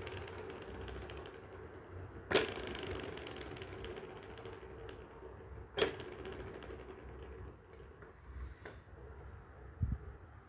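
Plastic balls rolling around the circular tracks of a tiered cat track tower toy: a steady rolling whir and rattle, set going again with a sharp click twice (a few seconds apart), and fading slowly after each. There is a soft thump near the end.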